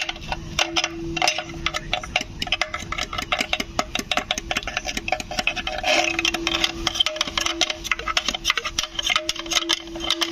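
Rapid metallic scraping and clicking as a hand tool scrapes deposits from inside a cut-open Tata BS6 exhaust silencer's steel shell, with a steady hum underneath.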